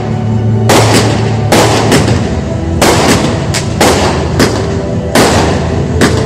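Fireworks going off: about a dozen sharp bangs in quick, uneven succession, each echoing away.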